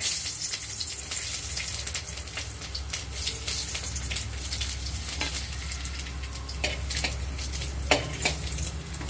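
Chopped garlic sizzling and crackling in a little hot oil in a metal pot, the sizzle starting suddenly as it goes in. Near the end a spoon stirs it, with a couple of knocks against the pot.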